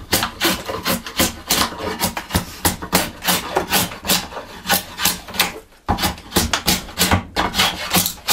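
Drawknife shaving a stick of wood clamped in a shaving horse: quick repeated pull strokes, each a short scraping rasp as a curl of wood peels off, with a brief pause about six seconds in.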